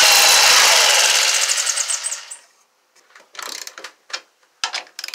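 Black+Decker CurveControl jigsaw cutting a notch in a 2x4 pine stud. Its motor winds down and stops about two seconds in. From about three seconds in, a ratchet wrench tightens a bolt in short bursts of clicking.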